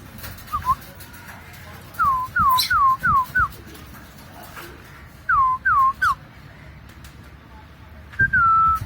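Cockatiel whistling: a quick run of five short notes that each slide downward, then three more, then one longer held note near the end.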